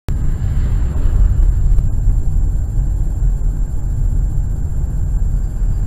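Car interior noise picked up by a dash camera: a steady low rumble of engine and tyres, starting abruptly, with a faint high-pitched whine throughout.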